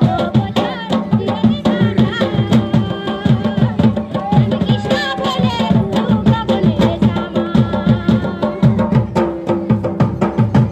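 Folk dance music: a two-headed barrel drum played by hand in a fast, steady rhythm, with a melody line over it.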